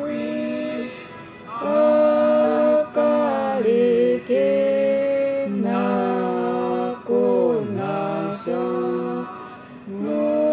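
A man and a woman singing unaccompanied in harmony, in long held phrases with short breaks between them.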